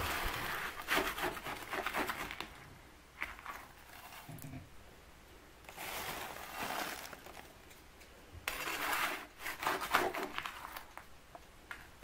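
Rusty metal dustpan scraping along a concrete floor as it scoops flakes scraped off an old ceiling, and the flakes tipped rustling into a plastic rubbish bag, in three spells of scraping and rustling with quieter gaps between.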